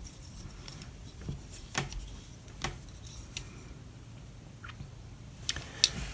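Light clicks and taps from a metal pocket multi-tool being handled and worked, about seven scattered clicks with the two sharpest near the end.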